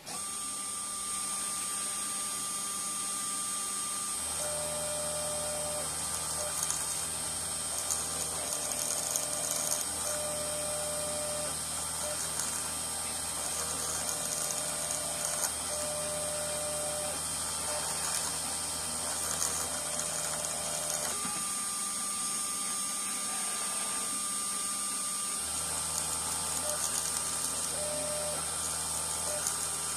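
Mini CNC 2417 mill milling copper: the spindle runs with a steady high whine while the stepper motors hum in spells of a few seconds, starting and stopping as the axes move the cut, with short changing tones between.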